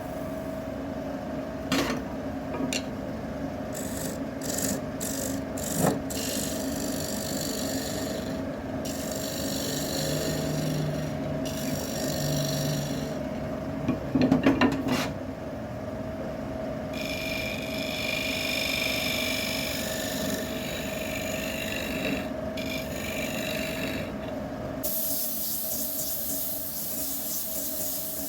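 Wood lathe running with a steady hum while a turning tool scrapes and cuts the spinning wood. There are a few sharp knocks early on and a louder rough stretch about halfway. Near the end the sound turns into an even hiss.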